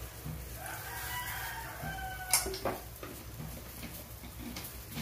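A rooster crowing once, a single long call of about a second and a half that starts about half a second in. Just after it there is a sharp knock, then a softer one.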